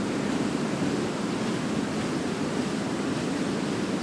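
Fast-flowing river water rushing, a steady, even noise.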